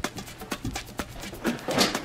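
Background music with a quick percussive beat, and a short louder burst of noise near the end.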